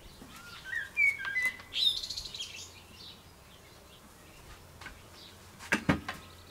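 Birds chirping and twittering in short calls during the first couple of seconds. Near the end come two quick knocks.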